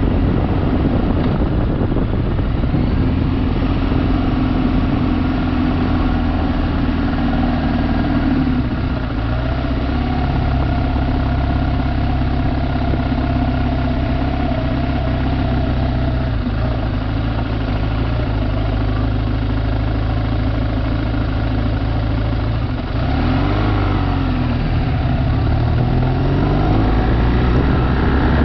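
Motorcycle engine running steadily at road speed, with wind rushing over the microphone. About 23 seconds in, the engine note drops briefly and then climbs again.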